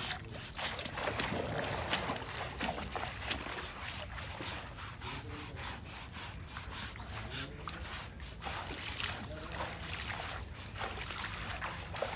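Scrubbing of an elephant's wet skin during its bath: repeated rasping scrape strokes, several a second, with no break between them.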